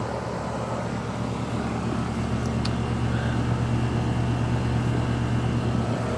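A 2015 Bryant straight-cool central air-conditioner condenser running: a steady low hum from the compressor under the rushing air of the condenser fan.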